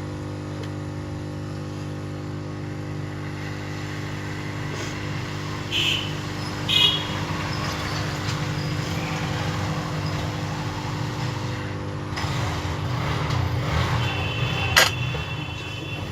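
SMD hot-air rework station blowing steadily, heating a phone display's flex-cable connector to melt its solder so it can be lifted off. A few short light clicks come around six to seven seconds in and again near the end.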